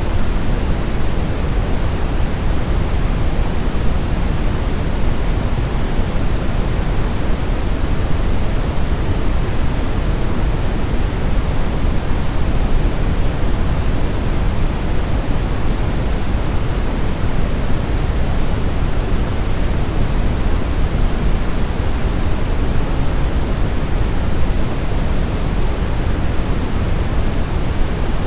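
Synthetic brown noise: a steady, even hiss with most of its weight in the low end, like a deep rumble, and no events or changes.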